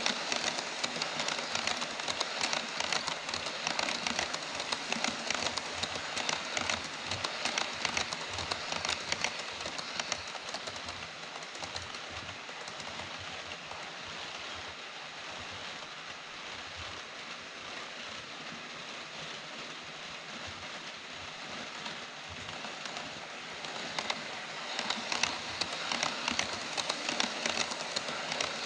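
HO scale model trains rolling on KATO Unitrack sectional track over a plastic viaduct: a fast, dense clatter of wheels clicking over the rails and joints. It is loudest as the container wagons pass, softer in the middle, and builds again near the end as more trains approach.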